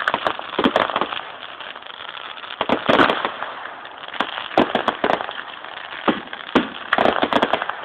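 Aerial fireworks going off: a rapid series of sharp bangs in clusters every second or two, with crackling from glittering bursts between them.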